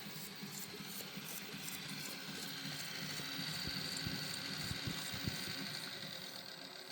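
Johannes Tittel BMT 6-8 bench drill press running on freshly replaced ball bearings, driven by a frequency inverter: a steady motor hum with a high whine. The whine grows louder a few seconds in and eases again near the end, with a few faint knocks in the middle.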